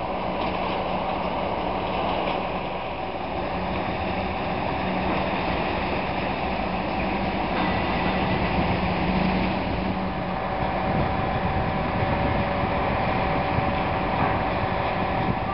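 An approaching electric passenger train: a steady rumble with a constant hum, growing slightly louder.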